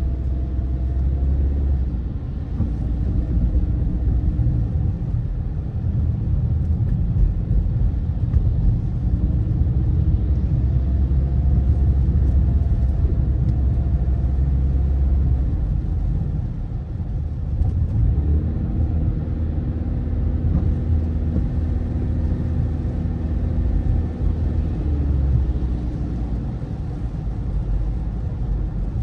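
Car cabin noise while driving on a wet road: a steady low rumble of engine and tyres, with a faint engine drone that shifts in pitch several times as the speed changes.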